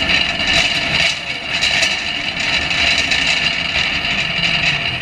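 Shopping cart rolling quickly over a concrete warehouse floor: a steady wheel noise with scattered metallic rattles from the wire basket, picked up by a camera fixed to the cart.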